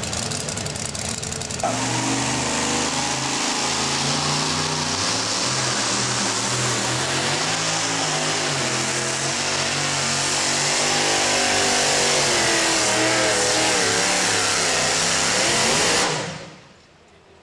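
Two-wheel-drive pulling truck's engine at full throttle, dragging the sled down the track. Its pitch steps up and down over a wide rasp of noise; it comes in loud about two seconds in and fades out near the end.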